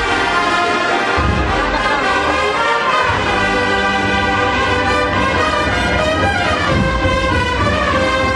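Agrupación musical, a Spanish processional band of cornets, brass and drums, playing a processional march live, with sustained brass chords whose notes shift from one to the next.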